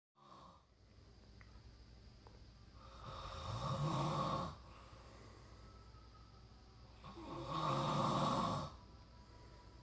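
A sleeping person snoring heavily: two long snores about four seconds apart, each building for over a second and then cutting off sharply, over a faint steady low hum.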